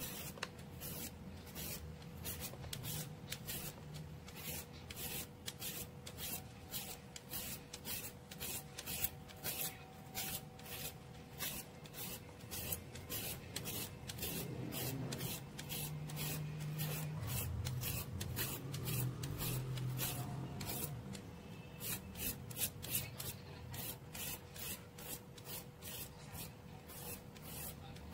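Toothed julienne peeler scraping down a cucumber, shredding it into thin strips: a steady run of short rasping strokes, about two a second.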